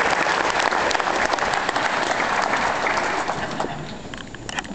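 Audience applauding, a dense crackle of many hands clapping that begins to die down near the end.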